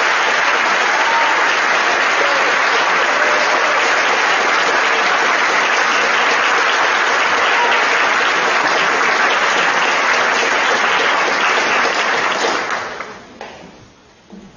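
Audience in a hall applauding steadily, the clapping dying away about two seconds before the end.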